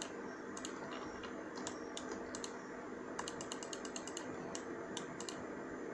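Faint, irregular clicking of a computer mouse and keyboard, some clicks in quick runs, as strokes are made with Photoshop's clone stamp tool, over a low steady hum.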